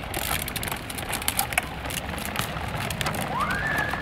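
Hard plastic wheels of a child's tricycle and a small bicycle rolling over concrete paving slabs: a continuous crackling rattle with many small clicks. A short high squeal rises and holds near the end.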